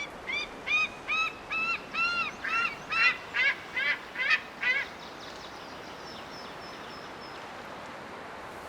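White-tailed eagle calling: a series of about thirteen high, ringing calls that come faster toward the end, followed by a few faint thin high notes.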